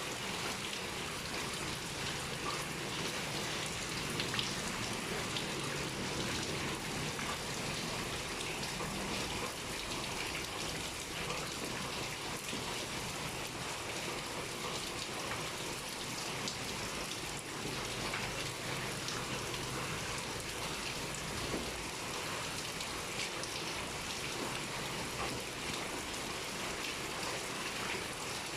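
Heavy rain pouring steadily, a dense patter of drops striking surfaces.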